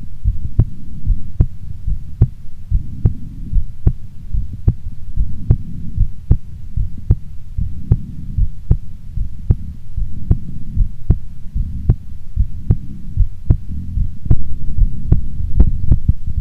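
A woman's heartbeat, steady at about 75 beats a minute, each beat a sharp click over a low rumbling hum that swells and fades every few seconds.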